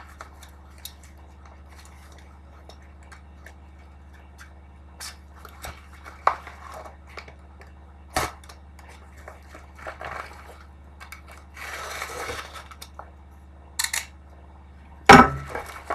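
Hands handling the cube's box and packaging: scattered light clicks and taps, a couple of seconds of rustling about twelve seconds in, and a sharp knock near the end, over a steady low electrical hum.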